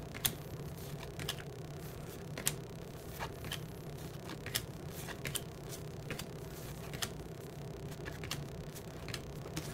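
Cardboard baseball cards being flipped through one at a time, each card slid off the front of the stack with a light, sharp click, irregularly, about one or two a second. A steady low hum runs underneath.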